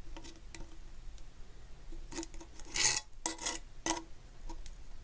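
Needle-nose pliers clicking and scraping against the aluminium mess-kit pan's riveted handle bracket as its end piece is bent to clear the lid. A string of small metal clicks and rubs, with a longer scrape about three seconds in.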